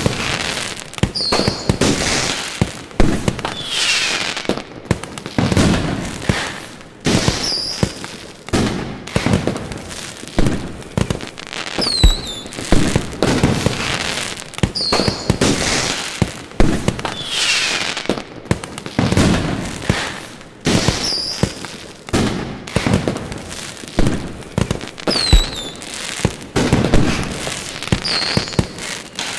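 Aerial fireworks display: a dense run of bangs and crackling bursts, with short whistles that fall in pitch recurring every few seconds.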